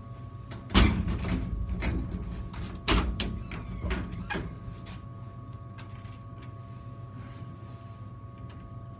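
A vending machine being worked: two loud bangs about two seconds apart, with lighter clicks and knocks around them, over a steady hum.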